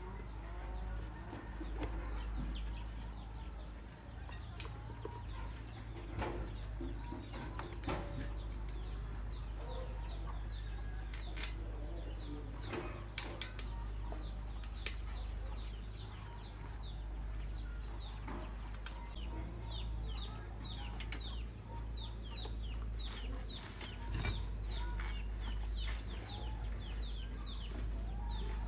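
A bicycle tyre being worked off its rim by hand, with a few sharp clicks and knocks. Behind it, birds chirp and cluck steadily, with quick descending chirps growing denser in the second half.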